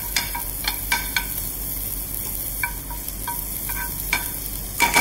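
Diced bacon and sliced garlic sizzling in rendered bacon fat in a frying pan, the garlic being crisped. A metal spoon clinks against the pan about ten times at an uneven pace as it stirs, with the loudest clink near the end.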